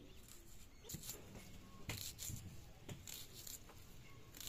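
Red onion being peeled and sliced against an upright curved iron cutting blade: a few short, crisp scrapes and cuts about a second apart.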